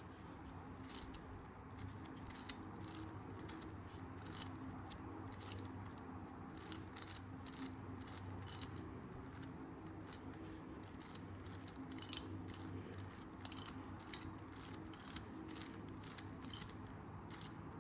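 Plastic 5x5x5 Rubik's cube being turned, its layers clicking and clacking in quick irregular runs, faint over a steady low hum.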